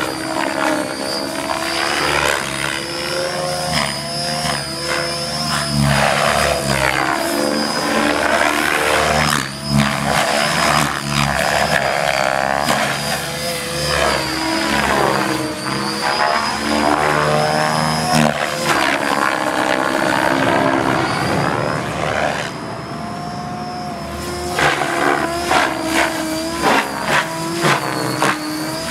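Compass 7HV electric radio-controlled helicopter in flight: the main rotor blades whooshing over a steady high whine, rising and falling in pitch as the helicopter manoeuvres. Near the end comes a quick series of short loud pulses.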